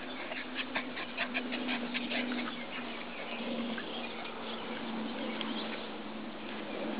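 Bouvier des Flandres puppies making short yips as they play, a quick run of them in the first two seconds or so and fewer after that. A steady low hum runs underneath.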